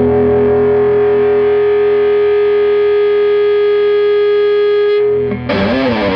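Electric guitar played through a Fender Champ 12 amp's overdriven dirty channel, gain just past 2: a distorted chord rings out for about five seconds, then a new attack with a bent note near the end.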